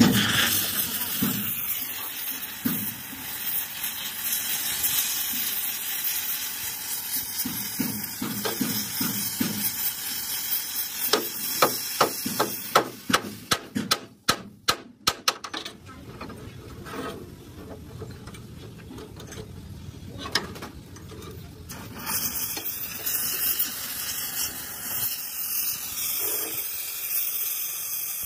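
Gas welding torch flame hissing steadily against a steel truck chassis rail, with a quick run of about a dozen sharp hammer blows on the steel midway. The hiss drops away for several seconds after the blows and comes back near the end.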